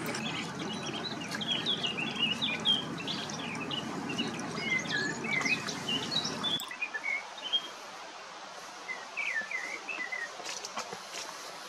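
Small songbirds chirping and twittering repeatedly in short, quick notes over a steady rushing background noise. The rushing background cuts off abruptly a little past halfway, and the chirps carry on over a quieter background.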